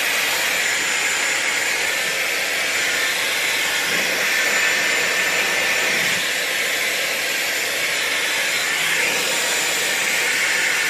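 Dyson Airwrap running on its blow-drying attachment: a steady rush of air with a faint high whine from its motor, blowing out a section of hair over a round brush.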